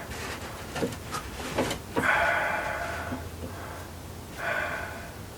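A person breathing out heavily through the nose close to the microphone, two long exhales, with a few light clicks and knocks of the rifle and gear being handled between them.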